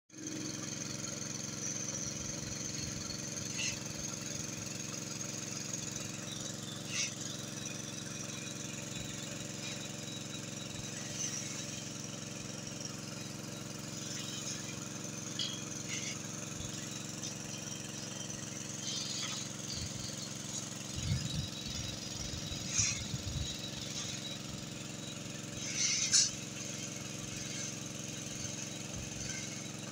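A diesel excavator engine running steadily at low revs, with a few sharp metallic clinks of steel reinforcing bars being handled and tied, scattered through and loudest near the end.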